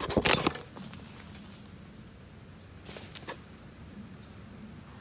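A Pallas's cat's face, whiskers and fur brushing and bumping against the phone's microphone. There is a loud scratchy rustle with crackling clicks in the first half-second, and a shorter cluster of clicks about three seconds in.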